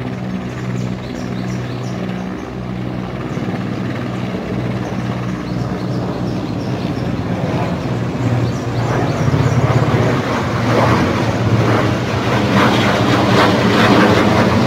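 Two helicopters flying overhead: a steady rotor beat and engine drone that grow louder in the second half.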